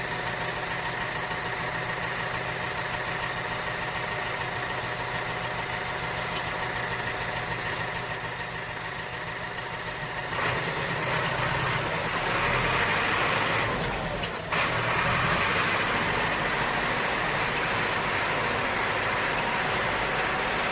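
Tractor engine idling steadily, then about halfway through it picks up and runs louder as the tractor is driven, with a brief dip a few seconds later before it runs on evenly.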